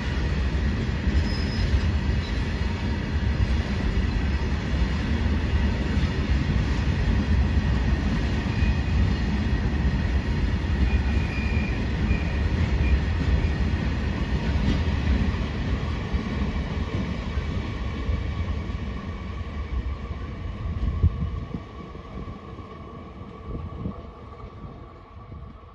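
Indian Railways freight train of open-top wagons rolling past: a steady low rumble and clatter of wheels on rail with a thin high squeal, one sharp knock about 21 seconds in, then fading as the brake van at the tail passes and moves away.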